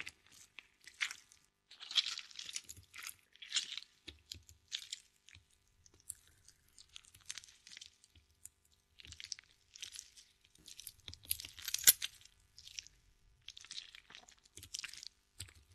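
A dog chewing on something, with short, irregular crunches.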